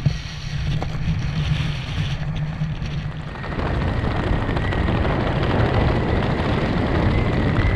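Wind rushing over the microphone under an open parachute canopy, a steady noise that grows louder and fuller about three and a half seconds in.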